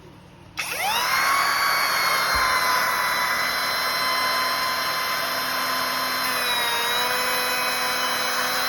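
Trim router fitted with a sanding bobbin, set to a low speed, switched on about half a second in. Its whine rises quickly as it spins up, then runs steadily with a noisy hiss, dropping slightly in pitch about six and a half seconds in.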